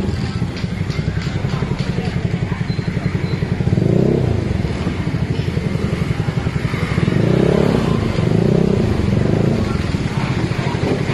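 Small motor scooter's engine running at low speed, a steady low pulsing throb.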